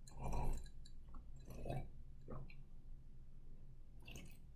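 A person sipping and slurping water from the opposite rim of a tilted glass, a few short, quiet slurps and swallows, the drinking trick used to stop hiccups. A faint low hum runs underneath.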